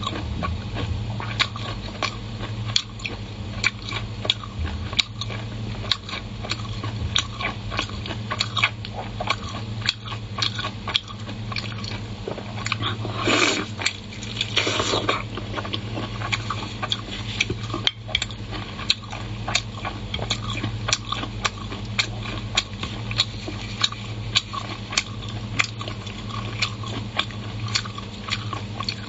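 Close-up wet eating sounds from a person's mouth: many quick lip smacks and chewing clicks on soft, chili-oil-soaked tripe-wrapped lamb brain. Two louder slurps come a little before the middle as she sucks and tears at the meat. A steady low hum runs underneath.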